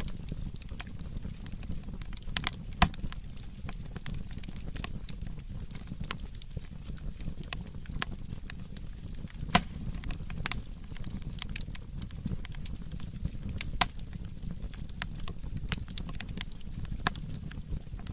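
Firewood burning, with a steady low rumble of flame and irregular crackles. A few louder sharp pops stand out, about three seconds in, near halfway and about two-thirds through.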